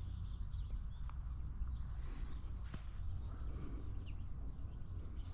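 Outdoor ambience dominated by a steady low wind rumble on the microphone, with a few faint footsteps on dry ground and faint bird chirps.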